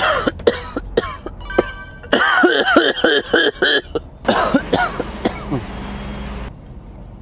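A man's voice making short repeated non-speech bursts, in two clusters of about four or five a second. Behind them is a steady hiss that cuts off suddenly near the end.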